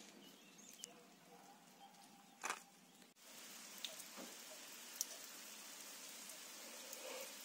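Steady light rain: an even hiss with occasional single drops landing close by, starting sharply about three seconds in. Before it, a quieter stretch with one sharp knock.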